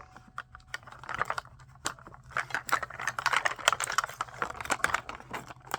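Plastic packaging of a Mini Brands toy capsule crinkling and rustling as it is opened, with many small clicks and taps; sparse at first, busier from about a second in.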